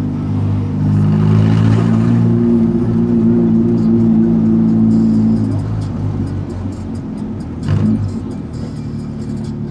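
Volkswagen Gol's engine droning through its aftermarket JK exhaust while driving, at a steady pitch. It eases off and drops in level a little past halfway, with a short louder burst near the end.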